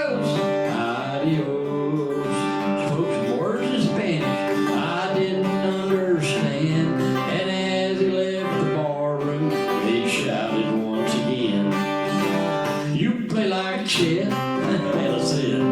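Acoustic guitar played live, a steady stream of plucked notes and chords with no break.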